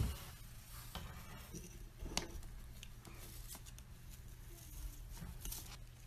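Faint scratching and scuffling with a few sharp clicks spread through it: a caique's claws and beak scraping and tapping on a wooden floor and baseboard as it rolls about.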